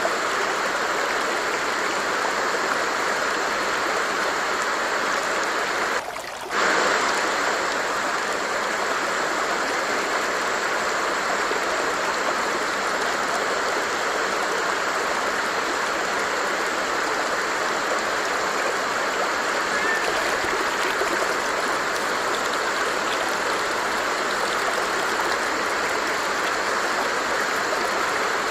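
Water stream flowing steadily, an even rushing and babbling, with a brief dip in level about six seconds in.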